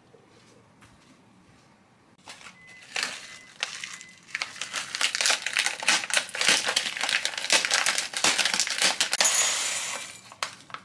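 Plastic snack packet crinkling as clumped granola is crushed inside it by hand, starting a couple of seconds in and going on for several seconds. Near the end the crumbled granola is tipped out of the packet into a ceramic bowl.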